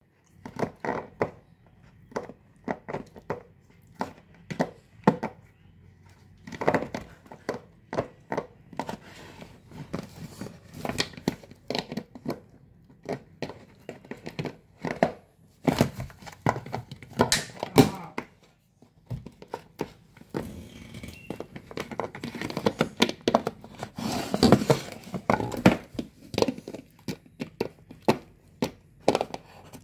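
A yellow Labrador retriever chewing on a plastic soda bottle: irregular crinkling and crackling of the plastic, with short pauses between bouts.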